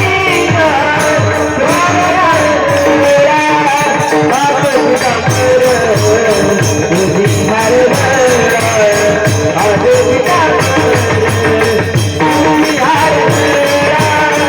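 Marathi devotional bhajan (panchapadi): a wavering, gliding melody line carried over a steady rhythm of drum strokes and jingling hand cymbals.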